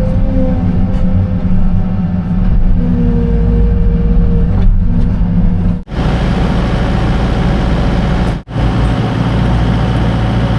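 Engine running steadily with a droning tone that wavers slightly in pitch; the sound drops out abruptly twice, about six and eight and a half seconds in.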